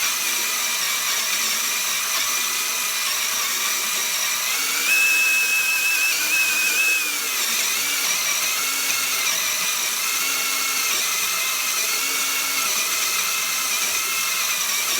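DeWalt DCD995 cordless hammer drill on low speed in drill mode, turning a Milwaukee hole saw through a cut. The motor whine is steady, rises in pitch for about two seconds near the middle, then settles back. The cut is going slowly, which the user blames on the hole saw rather than the drill.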